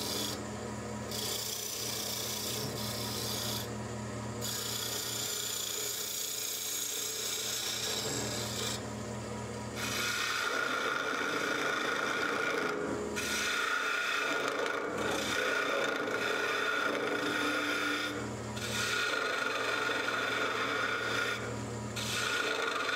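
Wood lathe turning a goblet of dense green arbutus while a hand-held turning chisel shaves down the stem: a steady hissing cut over the low hum of the lathe motor. The cut breaks off briefly every few seconds as the tool lifts, and grows louder from about ten seconds in.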